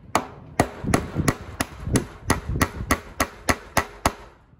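Claw hammer driving a U-nail through welded-wire poultry netting into a wooden 2x3 frame. About a dozen sharp strikes come at roughly three a second and stop shortly before the end.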